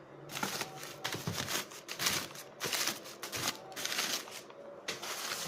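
Packing material rustling and crinkling in irregular bursts as it is handled and pulled open.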